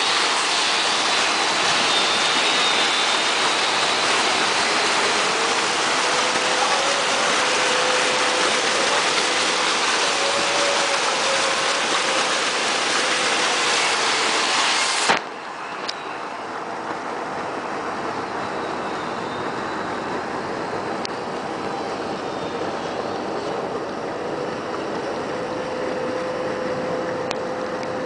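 Water cascading in a continuous sheet over the circular weir of a gravity self-cleaning filter and churning into the foaming tank: a steady, loud rush. About halfway through there is a click, and the rush suddenly turns quieter and duller, carrying on more softly.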